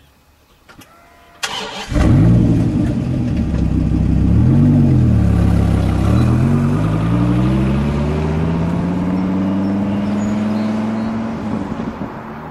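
Dodge Viper's V10 engine starting up about a second and a half in and catching loudly, blipped once, then pulling away with the pitch rising steadily as it accelerates through the gears, growing quieter near the end.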